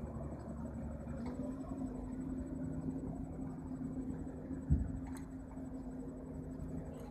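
Heavy diesel engines of dump trucks and a tracked excavator running steadily, a deeper rumble dropping away a little over a second in. A single dull thump is heard about two-thirds of the way through.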